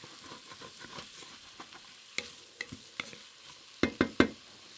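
A wooden spatula stirs and scrapes diced onion, carrot and celery in an enamelled Dutch oven, over a soft sizzle of the vegetables softening in fat. It is scraping up the browned fond from the pot's bottom. There are several sharper scrapes and knocks of the spatula against the pot, a cluster of them near the end.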